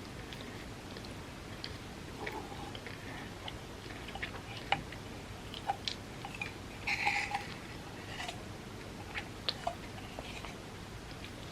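Chewing and mouth sounds of someone eating soft-baked chocolate chip cookie cups layered with chocolate wafers: scattered wet clicks and smacks, with a louder bite or crunch about seven seconds in.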